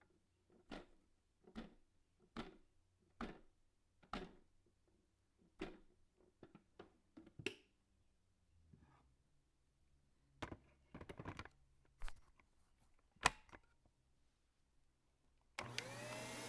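A series of light clicks and taps, about one a second at first and then scattered, then a Shark vacuum cleaner's motor switches on near the end, its whine rising as it spins up to a steady rush.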